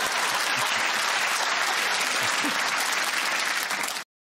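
Studio audience applauding, a dense, steady clatter of clapping that cuts off abruptly about four seconds in.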